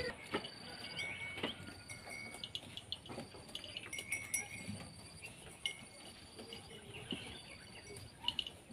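Goat kids scuffling at a cardboard box: scattered light knocks and rustles of hooves and cardboard, with insects chirping in repeated high trills behind.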